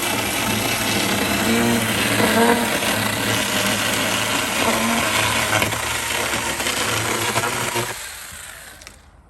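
Chainsaw engine running and cutting, then dying away about eight seconds in.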